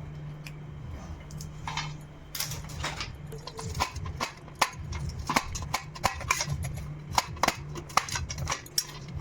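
Kitchen utensils clinking and knocking against glass or metal dishes, a sharp tap every second or so from a couple of seconds in, over a steady low hum.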